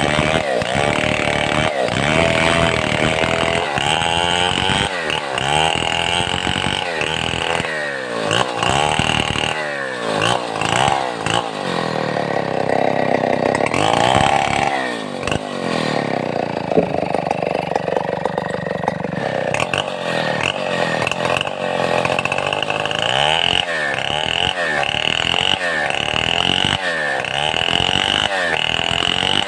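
Stihl 070 two-stroke chainsaw running hard, its engine note rising and falling again and again as the throttle is worked, with a longer, steadier held stretch around the middle.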